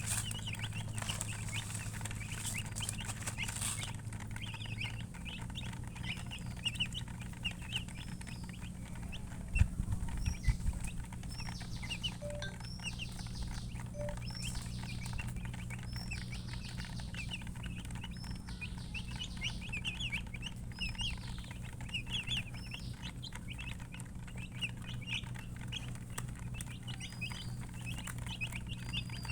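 A brood of baby chicks peeping continuously in many short, rapid chirps, with a steady low hum underneath and a few low thumps about ten seconds in.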